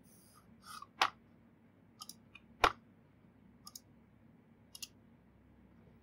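Scattered single clicks of a computer keyboard, a few short keystrokes at a time with gaps between, the sharpest about a second in and again just past two and a half seconds.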